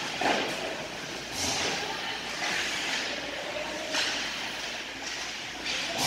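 Ice hockey game in an echoing indoor rink: skates scraping the ice in short hissing strokes over a low hall rumble, with distant voices and a sharp knock near the end.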